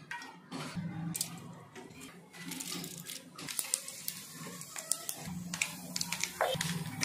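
Oil being poured into a steel kadai, then dried red chillies and mustard seeds frying in the hot oil, with sharp crackles and pops that come thick and fast from about halfway.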